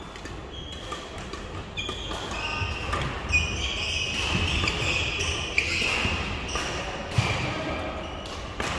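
Badminton play on an indoor court: sharp racket hits and footfalls, with shoes squeaking on the court floor.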